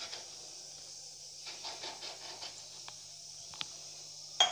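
Soft scraping and tapping as the rim of an upturned glass presses circles out of rolled wheat dough, then a few light clicks and one sharp knock near the end, over a steady faint hiss.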